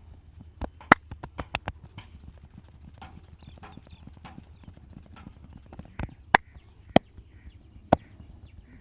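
Sharp percussive strikes from a hands-on head and back massage. Two hits come first, then a quick run of about five. Four single loud hits are spread over the last three seconds.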